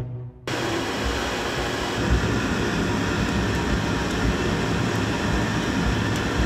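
Wood fire burning hard: a steady roaring rush with a low rumble and a few faint crackles, starting suddenly about half a second in.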